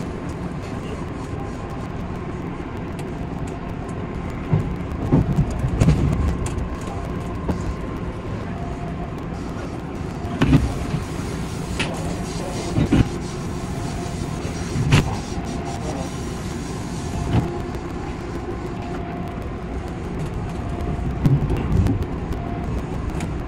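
Odakyu 8000 series electric train running, heard from the driver's cab: a steady rumble with scattered knocks and thumps every second or few.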